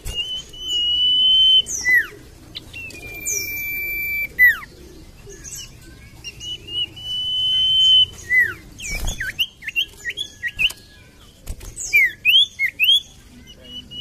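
Common iora singing: long whistled notes, each held for about a second and a half and dropping at the end, then runs of short quick chirps in the second half. A soft thump comes about halfway through.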